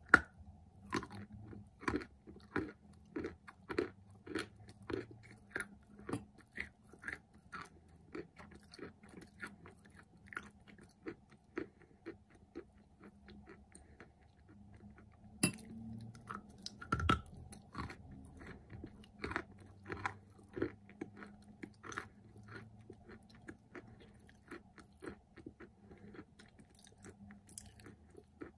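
Close-miked crunching bites and chewing of a dry white chunk coated in clay paste, about two crunches a second, with sharp, loud bites at the very start and twice about halfway through.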